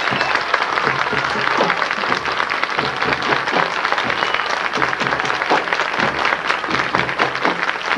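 Crowd applauding steadily in the stands, with marching-band music playing underneath.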